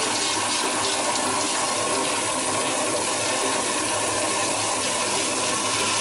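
Flushometer toilet flushing: a steady rush of water into the bowl at a supply pressure still a little too high.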